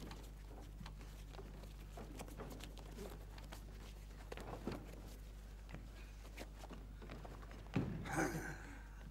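Faint rustling of clothing and small knocks of boots being pulled on by someone sitting on a wooden stage bed, over a low steady hum. Near the end comes a sudden loud thump as he falls back onto the wooden boards, followed by a brief rush of noise.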